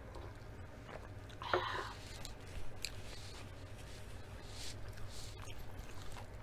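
Close-miked mouth sounds of drinking from a mug and swallowing. One louder sip or gulp comes about a second and a half in, followed by soft lip smacks and small mouth clicks over a low steady hum.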